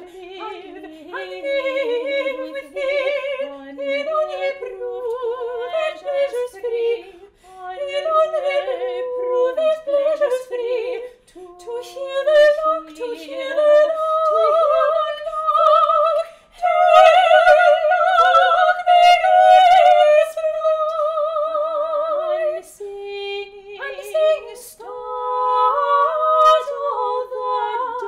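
Two overdubbed soprano voices, both sung by one woman, singing a Baroque-style chaconne duet unaccompanied. The parts move in short notes at first, then hold long notes with vibrato from about 16 to 22 seconds in, the loudest stretch, before a brief break and a new phrase.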